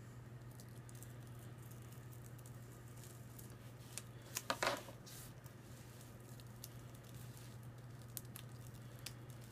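Faint crackles and small ticks of cut adhesive vinyl being peeled off its backing sheet by hand, with one louder crinkling peel about four and a half seconds in, over a steady low hum.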